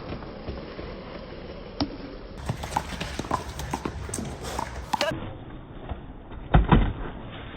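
Sharp slaps of a small rubber handball off players' hands and the wall during a one-wall handball rally, irregular and scattered, with a heavier thump about six and a half seconds in.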